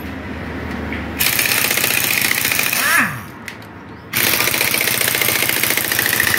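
Impact wrench hammering on the engine bolts of a Honda motorcycle. It runs in two bursts: the first starts about a second in and winds down with a falling whine, and the second starts a little past halfway.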